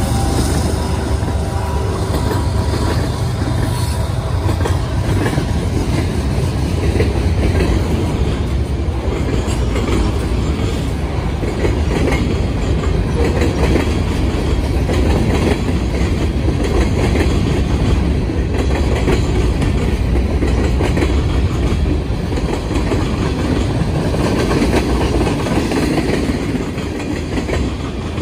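Freight train passing close by. A diesel locomotive's engine tones are heard for the first couple of seconds, then comes the steady clatter and rattle of freight car wheels and bodies rolling past, with a deep rumble underneath.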